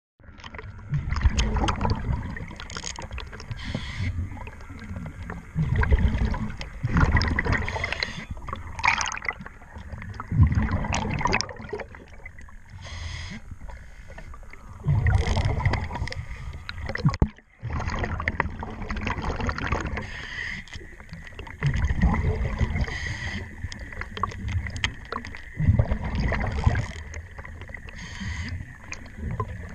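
Scuba diver breathing through a regulator underwater: exhaled bubbles rumble in surges every four to five seconds, with hiss and scattered sharp clicks between them from a hex key working the screws of a zinc collar anode on a propeller shaft.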